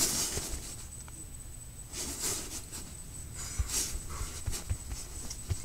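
Rustling of sleeping bags and tent fabric in a few short bursts, with soft low bumps as someone shifts about.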